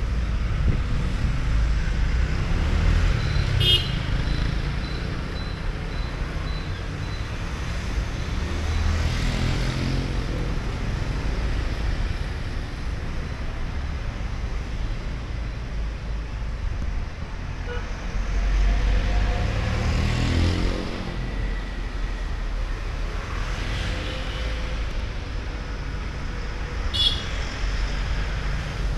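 Busy city street traffic: cars and motorbikes running and passing close by, with two short horn toots, one about four seconds in and one near the end.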